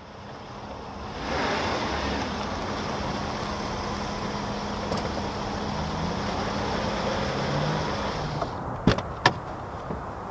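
Car engine running: a steady rush with a low hum that grows louder over the first second and a half, then cuts off about eight seconds in. Two sharp clicks from the car door follow, then a few fainter knocks.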